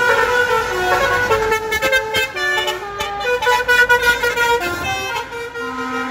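Truck horns sounding a quick run of notes that step up and down in pitch like a tune, then one steady horn tone starting near the end.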